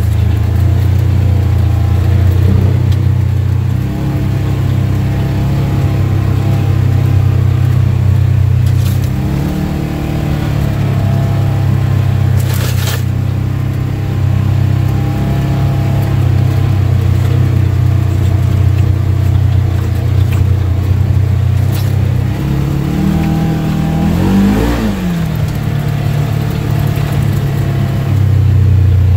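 Polaris General UTV's twin-cylinder engine running as it drives a rough dirt trail, its revs dipping and rising around ten seconds in and again around twenty-four seconds in. A sharp knock sounds about thirteen seconds in.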